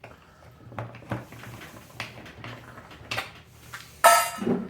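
Screwdriver clicking and scraping on a plastic box fan's housing as it is unscrewed, with a louder clatter about four seconds in.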